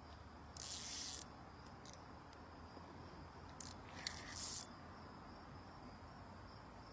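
Faint steady high insect trill, broken by a few short rasping bursts of hiss: one lasting about half a second shortly after the start, a brief one near two seconds, and a cluster with a sharp click around four seconds in.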